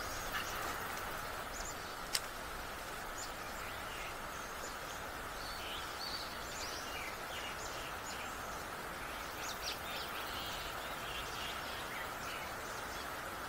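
Birds chirping in short, scattered calls over a steady background hiss, with one sharp click about two seconds in.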